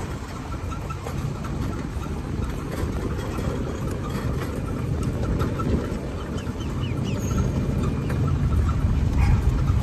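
Golf cart driving along: a steady low rumble of the moving cart that grows louder near the end.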